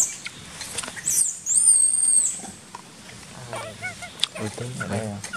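Baby macaque screaming: one high-pitched, thin cry, rising at the start and then held for about a second, a little after the start.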